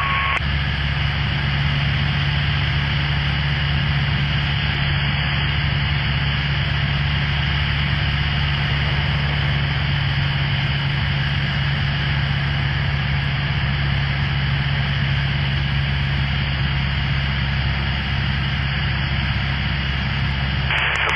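Cessna Skyhawk's piston engine and propeller droning steadily in flight, with a constant hiss over it.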